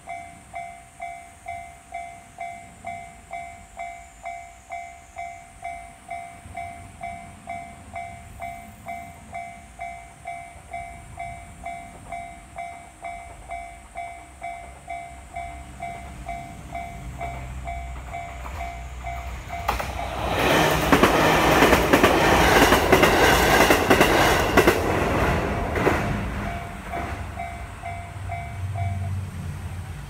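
Japanese level-crossing warning bell ringing in a steady two-tone clang about twice a second while a train approaches. About two-thirds of the way through, the train passes in a loud rush of wheels on rails that drowns the bell, then fades, and the bell stops near the end as the crossing clears.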